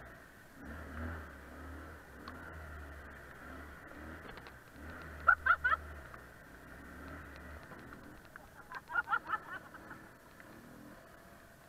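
ATV engine running at low, steady revs. Two quick bursts of short, high chirps cut in over it, one about halfway through and another a few seconds later, louder than the engine.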